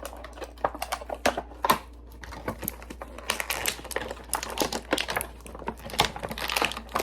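Irregular plastic clicks, taps and crinkling from handling an action figure's plastic packaging and accessories.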